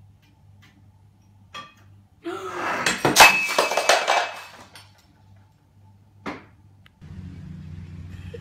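A ceramic bowl crashing to a hard floor and breaking, the pieces clattering and ringing for about two seconds. A short knock comes just before it, and another a couple of seconds after.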